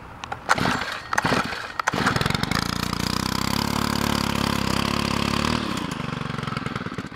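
Stihl KM 90 R kombi engine being cold-started: the starter rope is pulled a couple of times, the engine catches about two seconds in, runs for about four seconds, then dies out.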